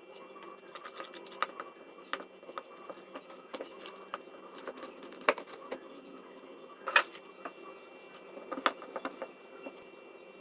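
Kitchen utensils and containers being handled: irregular light clicks and clinks, with a few sharper knocks, over a steady hum.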